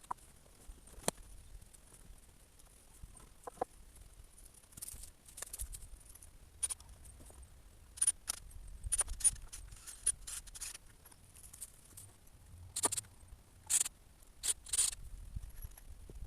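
Scattered short clicks, scrapes and rustles, coming in clusters with the loudest near the end, as of materials being handled during outdoor work.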